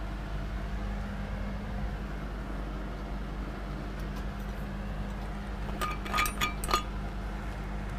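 Steady low electrical hum, with a quick cluster of light, briefly ringing clinks about six seconds in.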